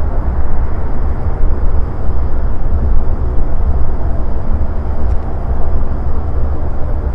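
An Antonov An-26's two turboprop engines running as the aircraft moves along the runway. The sound is a loud, uneven low rumble with a faint steady high whine above it.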